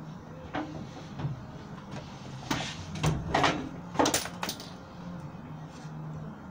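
A cluster of loud knocks and scrapes about halfway through, over a steady low hum.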